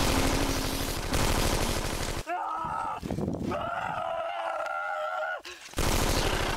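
Rapid machine-gun fire that stops a little over two seconds in. A man's long, drawn-out cry of about three seconds follows, then the machine-gun fire starts again near the end.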